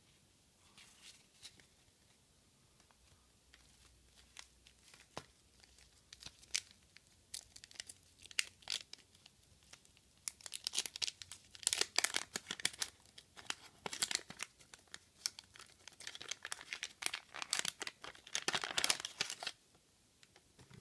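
Light clicks of trading cards being handled, then the wax paper wrapper of a 1985 Garbage Pail Kids pack being torn open and crinkled in irregular bursts through the second half.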